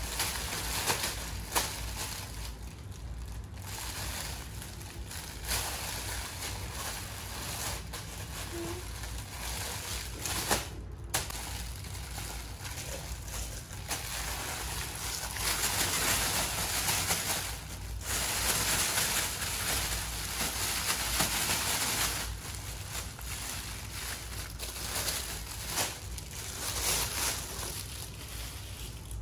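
Clear plastic wrapping crinkling and rustling on and off as it is handled and pulled off a rubber chicken-head mask. It is loudest for several seconds around the middle.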